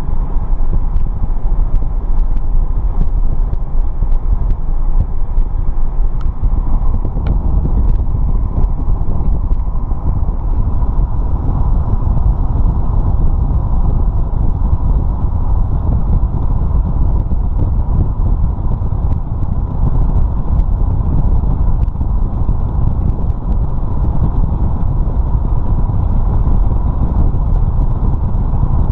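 Vehicle driving steadily along a road: a continuous low rumble of tyre, wind and engine noise, with a faint steady whine.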